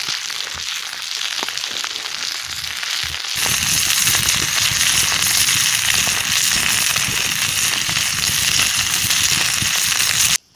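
Chipolata sausages sizzling in a metal pan on campfire embers, with the wood fire crackling: a dense, steady sizzle full of fine crackles. It gets louder about a third of the way in and cuts off abruptly just before the end.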